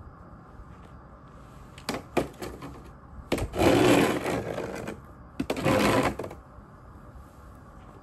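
Snow shovel working snow on a cleared, paved patch: a few light knocks, then two long scrapes of the blade, the first longer than the second.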